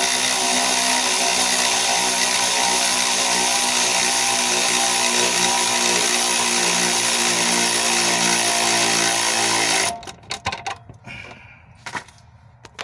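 Electric ratchet with a 14 mm socket running steadily, spinning down the nut on the upper stud of a new front shock absorber. It stops about ten seconds in, with the nut tight, and a few clicks and knocks follow.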